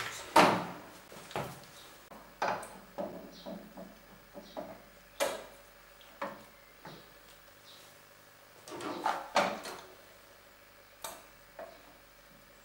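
Irregular clunks, knocks and light rattles of metal steering parts on a Wolf-Garten lawn tractor being handled and fitted by hand. The loudest knocks come just after the start and again about nine seconds in.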